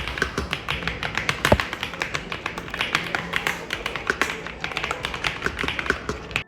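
Fast typing on a Royal Kludge S98 mechanical keyboard with linear switches: a quick, steady run of key clacks.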